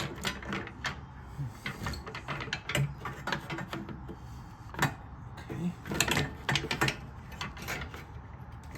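Fan shroud being offered up to a loose radiator: irregular clunks, taps and rattles as the parts are shifted against each other to line up the mounting brackets.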